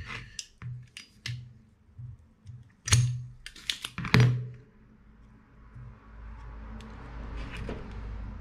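Small clicks and knocks of tools being handled and set down on a workbench, with two louder knocks about three and four seconds in, followed by a steady hiss over the last few seconds.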